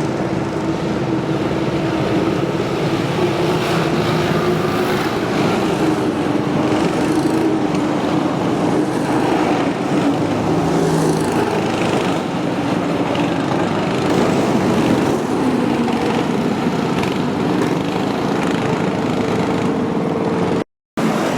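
Small single-cylinder cyclekart engine running, its pitch wavering up and down as the kart is driven. The sound cuts out for a moment near the end.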